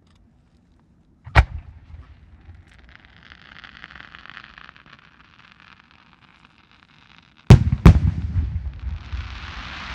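Aerial fireworks: a single launch bang a little over a second in, then a hiss for about three seconds as the shell's tail rises. Near the end come two loud shell bursts about half a second apart, the loudest sounds here, each followed by a rumbling echo. A steady hiss begins just before the end.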